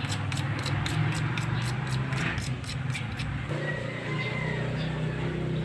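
A steady low mechanical hum with a regular ticking, about five ticks a second, that stops about three and a half seconds in.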